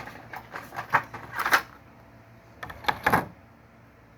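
Plastic packaging crinkling and clicking as it is pulled and torn open by hand, in two short flurries of crackles, the second a little under a second long, then quieter.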